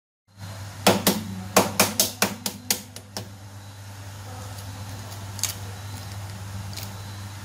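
Shells of hard-boiled duck eggs being tapped and cracked: a quick run of about ten sharp clicks, then a few fainter cracks as the shell is broken up for peeling.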